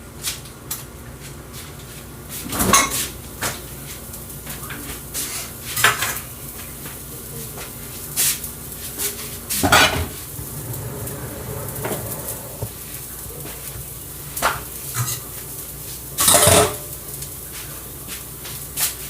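Pots, pans and metal utensils clattering and clinking as food is handled on the stove, with a dozen or so separate knocks scattered through the stretch over a steady low hum.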